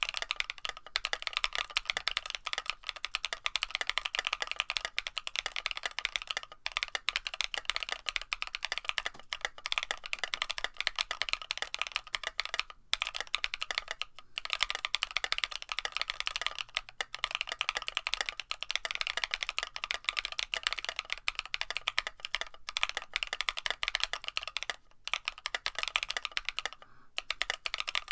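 Fast typing on an Aozora mechanical keyboard with a carbon fiber plate and NovelKeys Cream+ linear switches fitted with metal stem inserts. A dense, steady stream of keystrokes, broken by a few short pauses.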